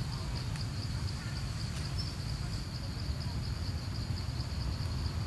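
Insects chirping in a steady, high, evenly pulsed trill, several pulses a second, over a continuous low rumble.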